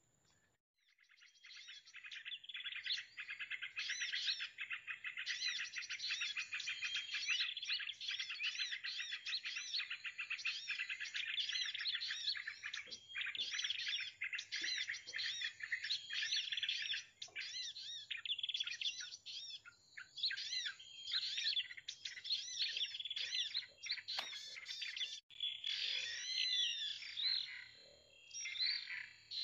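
Small birds chirping in dense, rapid runs of high notes that start about a second in and go on without a break. Near the end, swooping calls of a different shape come in.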